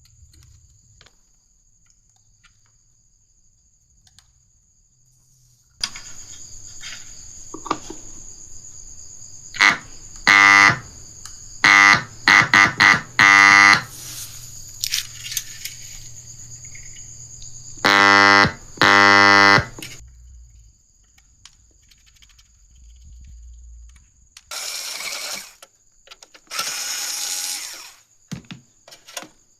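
Old audio amplifier sounding through its speaker: a low mains hum and a thin high whine come on a few seconds in, broken twice by loud, harsh buzzing tones, with two bursts of hiss near the end.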